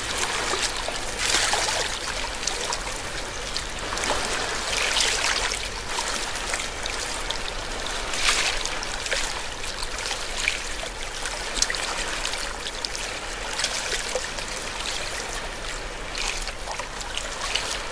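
Water running and trickling steadily, with louder swells every few seconds.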